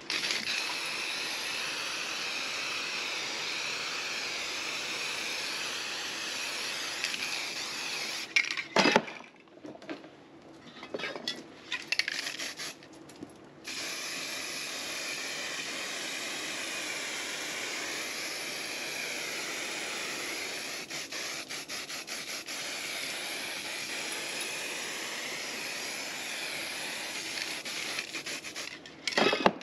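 Aerosol spray paint can hissing in long steady sprays. About 8 seconds in the spraying stops for several seconds of sharp clinks and knocks, then the hissing resumes and runs on, with another knock near the end.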